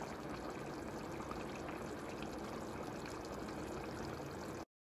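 Chicken curry simmering in a pan: a steady bubbling with faint small pops. It cuts off suddenly near the end.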